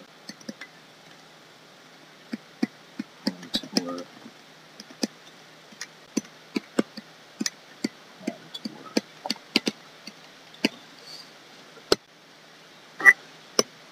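Drawing-tablet pen tapping and clicking against the tablet surface as quick strokes are sketched, in irregular sharp ticks about one or two a second, with a duller knock near the end.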